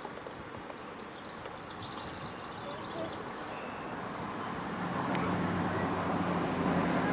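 A steady low motor hum comes in about halfway and grows louder over outdoor background noise. Faint, rapid high chirping is heard early on.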